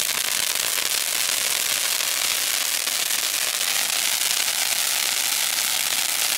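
Anar (ground fountain firework) spraying sparks: a steady hiss with fine crackling throughout.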